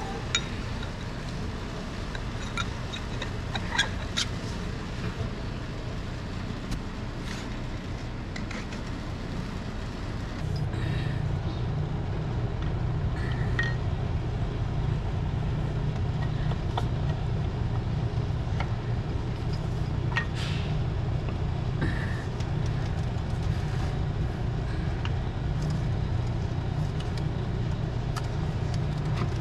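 Scattered light metallic clicks and taps from a piston ring compressor and a piston with freshly oiled rings being handled and fitted. Under them is a steady low mechanical drone that gets louder about ten seconds in.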